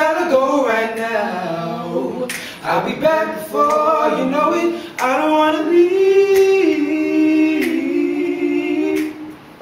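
Young men singing an R&B song a cappella, without accompaniment; a short break about two and a half seconds in, then one long held note that wavers in pitch before the singing stops near the end.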